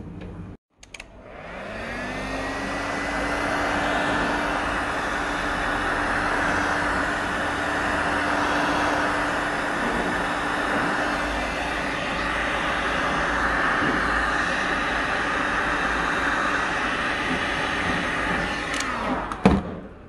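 Electric heat gun running, shrinking heat-shrink tubing over soldered wire joints. Its fan motor winds up to speed about a second in, with a rising whine, then blows steadily before being switched off near the end.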